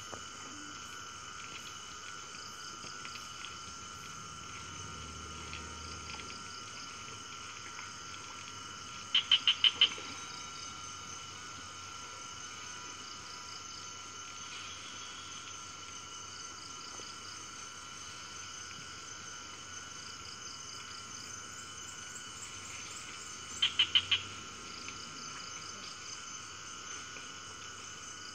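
Steady rainforest chorus of insects and frogs, several high, even drones layered together. Twice, about ten seconds in and again near twenty-four seconds, a louder call of five or six quick, sharp notes cuts through.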